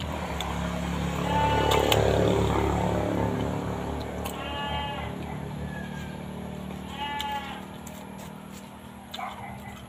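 A farm animal bleating three times, a few seconds apart, each call short, over a low steady hum.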